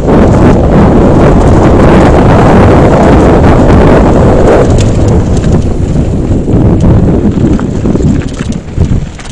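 Loud wind buffeting the microphone of a camera riding on a mountain bike at downhill speed, mixed with the clatter and rattle of the bike running over a rough gravel trail. It eases off and dips briefly near the end.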